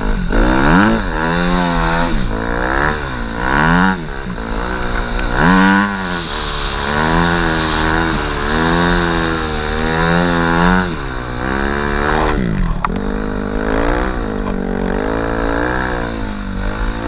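Snow bike (a dirt bike converted with a snow track) engine being ridden, its pitch climbing and dropping back again and again as the throttle is opened and closed.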